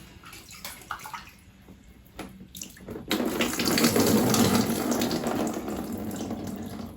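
Bath water running: a few small knocks and splashes, then water starts to flow about three seconds in and runs steadily, slowly getting quieter.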